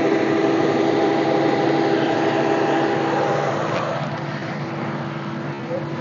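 Yanmar YH850 combine harvester's diesel engine and unloading auger running steadily while threshed rice grain pours from the boom spout into a sack with a rushing hiss. The hiss eases about four seconds in.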